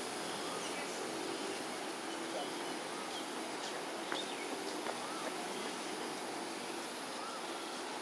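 Steady outdoor background hiss with faint murmuring of distant voices, and a few short, high chirps scattered through.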